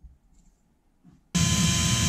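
A few faint knocks, then about a second and a half in an electric hand drill starts abruptly and runs steadily with a loud whine, drilling into an aluminium rudder part.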